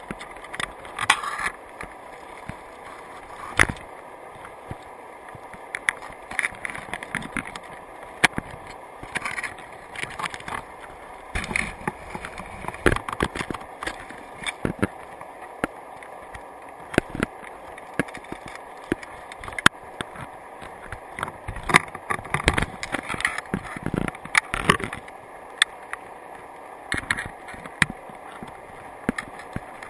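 Crabs' legs and shells clicking, tapping and scraping against an underwater camera housing and wire crab trap, at irregular moments, over a steady underwater hiss.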